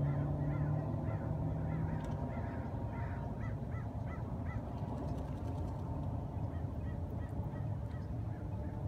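A goose honking repeatedly in a quick run of calls, about two to three a second, tailing off after the first half, over a steady low background rumble.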